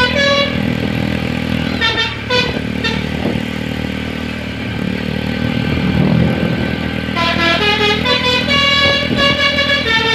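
A bus's telolet horn, a multi-tone air horn, plays quick melodic runs of stepping notes in short bursts at the start and about two seconds in, then a longer continuous run from about seven seconds in. The bus engine runs underneath throughout.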